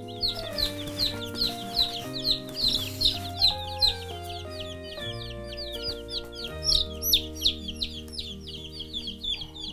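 Day-old black Australorp chicks peeping: a steady string of short, high, falling peeps, several a second, over background music with held notes.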